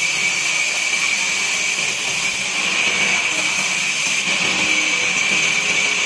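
Vertical band sawmill running, its blade ripping lengthwise through a squared timber: a steady, high-pitched machine noise.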